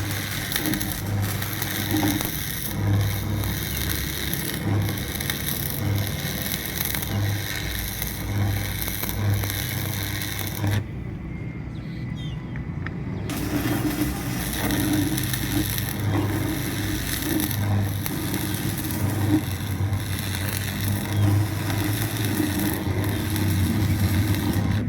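A machine running steadily with a low, throbbing hum, with scraping and rattling noise over it; the scraping noise drops out for about two seconds midway while the hum carries on.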